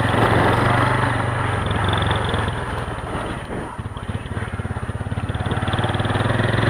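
Motorcycle engine running as the bike is ridden. It eases off a little past the halfway point and picks up again near the end.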